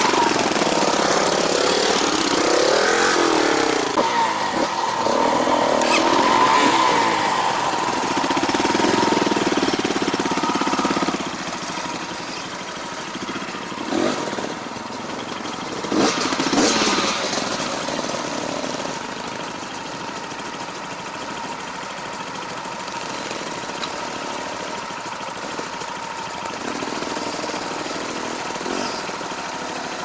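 Small off-road trail motorcycle engines running at low speed on a steep, rough trail, revving up and down unevenly for the first ten seconds or so, then running more quietly. A couple of short knocks come midway.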